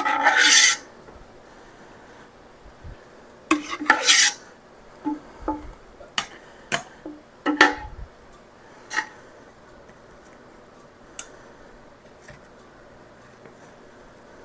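Metal spoon scraping against the inside of a stainless steel stockpot while scooping apple pie filling, twice, followed by several short metallic clinks. It quietens to a few faint ticks in the second half.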